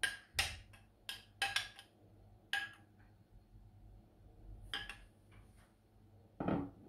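Metal spoon scraping and clinking against a white ceramic dish as thick custard is scooped out. There is a quick run of clinks in the first three seconds, then a few more sharp knocks later on.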